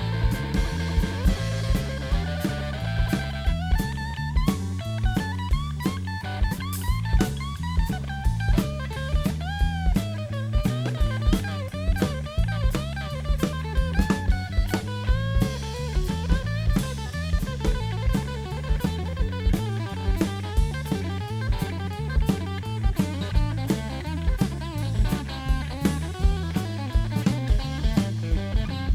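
A live blues band plays an instrumental break without vocals. A bass line steps from note to note under the drum kit, and a lead instrument plays bent, gliding notes above.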